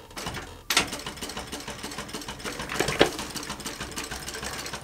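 Industrial sewing machine driven by a servo motor, stitching. It starts running with a click about a second in and keeps up a steady run of stitches, with a sharp knock about three seconds in.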